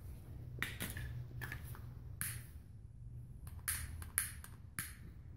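Long-nosed utility lighter clicked over and over, about ten sharp irregular clicks, some with a brief hiss of gas.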